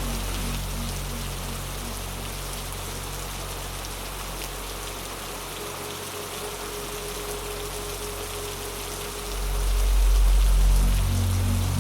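Steady rain falling, an even hiss with raindrop patter, over a low sustained ambient drone. A deep low swell rises about three-quarters of the way through.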